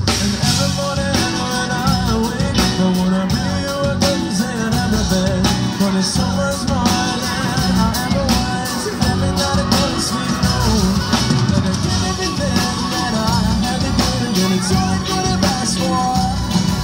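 Live rock band playing a song, with drum kit and guitar.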